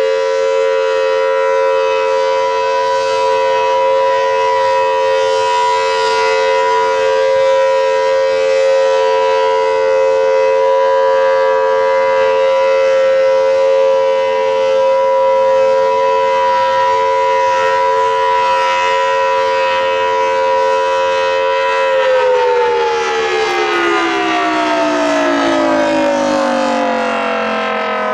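Federal Signal Thunderbolt 1000AT outdoor warning siren, an early A2-series unit with the larger 5M blower, sounding a loud steady wail at one held pitch. About 22 seconds in it begins to wind down, its pitch falling steadily.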